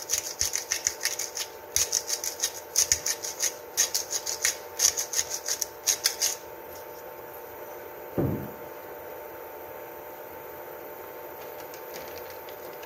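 Hand-twisted Himalayan pink salt grinder cracking salt crystals: quick trains of gritty clicks in repeated bursts, one burst per twist, stopping about six seconds in. A single dull knock follows about two seconds later.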